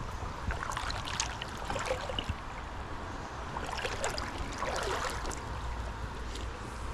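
Shallow river water running steadily over stones, with a few light clicks and small splashes scattered through it.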